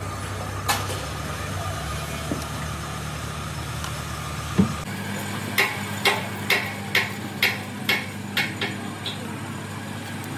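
A run of about nine sharp hammer strikes, roughly two a second, over the steady hum of a running workshop machine. A single heavier knock comes just before halfway.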